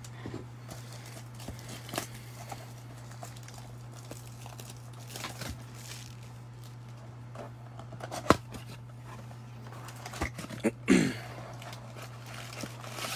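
Cardboard trading-card box being handled and opened: scattered taps and scrapes, a sharp click about eight seconds in, and a short tearing rip as the box flap is pulled open about eleven seconds in. A steady low hum runs underneath.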